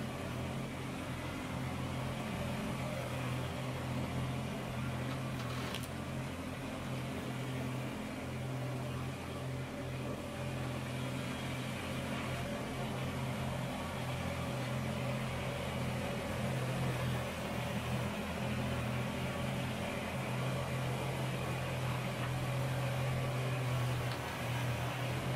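Kubota BX compact tractor's three-cylinder diesel engine running steadily at a constant speed as the tractor drives slowly closer over gravel.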